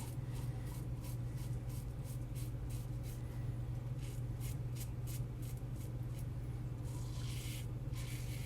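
Safety razor with an Astra Platinum blade scraping through lathered stubble in short, quick strokes, about two to three a second. One longer, louder rasp comes at about seven seconds in. The razor is a brass Karve Christopher Bradley.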